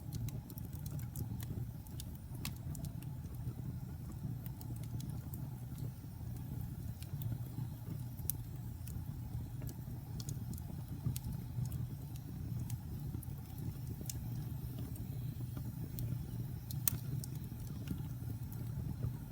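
Wood fire burning in a fireplace: a steady low rumble of flames with scattered crackles and pops, a few of them sharper.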